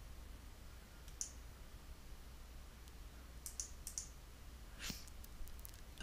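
Faint computer mouse clicks over a low steady hum: one about a second in, a few close together around three and a half to four seconds, and a few more near the end.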